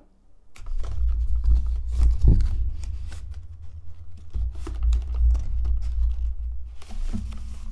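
A cardboard product box being opened and handled: the end flap is pulled open and the contents slid out, with short scrapes and rustles of card. Under them a heavy, uneven low rumble starts about half a second in.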